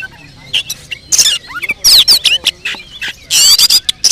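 Oriental magpie-robin (kacer) singing loudly: a fast, varied stream of sharp whistles, quick rising and falling slurs and harsh squeaky notes. The song is laced with mimicked calls of other birds (isian).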